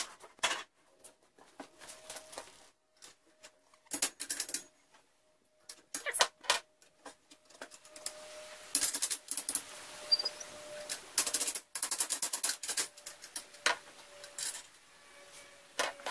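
Steel tubes clinking and knocking against a steel go-kart frame as they are handled and fitted into place, in irregular clusters of light metallic taps with quick runs of them in the middle and near the end.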